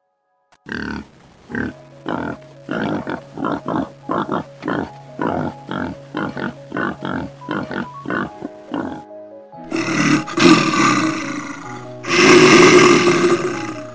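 Animal-call sound effects over background music: a quick series of short grunting calls, about two or three a second, for some eight seconds, then two louder, rougher calls near the end.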